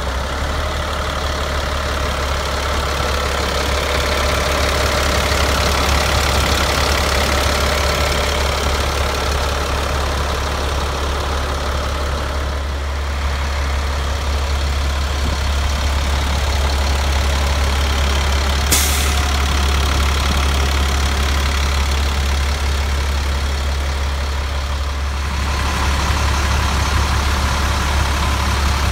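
Caterpillar 3126 inline-six turbo diesel idling steadily in a GMC C7500 truck. A brief high hiss cuts through about two-thirds of the way in.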